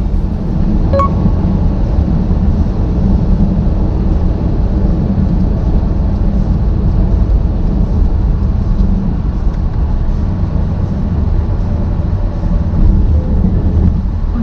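Steady low rumble of a moving vehicle heard from inside: engine and road noise, even throughout, with a brief faint tone about a second in.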